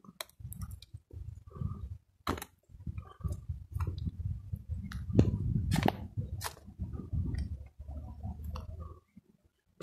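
Footsteps crunching and crackling on a dirt path littered with dry leaves, with an uneven low rumble on the handheld microphone. The noise stops about nine seconds in.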